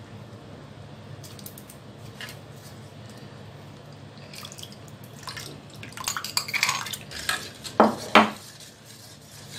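Metal kitchen utensils clinking and clattering against a vessel, likely a spoon mixing the tamarind relish after the salt goes in. It is sparse at first, busier from about halfway, with two loud knocks near the end, over a steady low hum.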